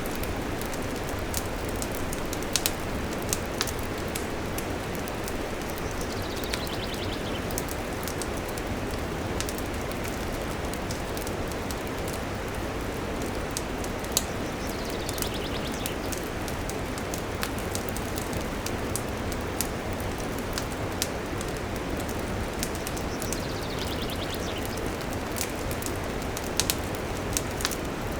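Wood campfire burning: a steady hiss with frequent sharp crackles and pops.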